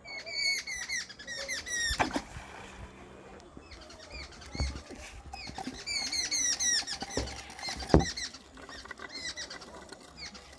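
Runs of short, high-pitched, falling chirps, several to a second, coming in bursts. Three sharp knocks come through them, the loudest about eight seconds in.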